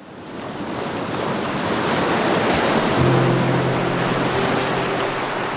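Steady rushing noise of water and wind that fades in at the start. Background music with low held notes comes in about three seconds in.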